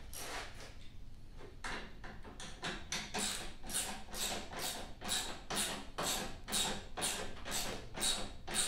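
Ratchet wrench tightening a bolt on a new snowblower: a quick, even run of ratcheting strokes, about three a second, that settles into a steady rhythm from about three seconds in.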